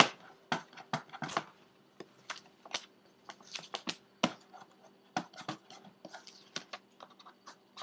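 Plastic packaging crinkling and clicking in irregular short bursts as the protective covering is taken off a graphics tablet.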